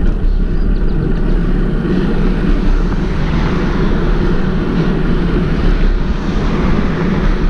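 Wind rushing over the microphone of a rider on a moving bicycle: a loud, steady rush of wind noise.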